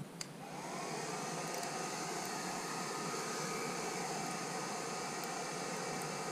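Electric hair dryer used as a forge blower, switching on and spinning up about half a second in, then running steadily with an even rush of air and a steady motor whine.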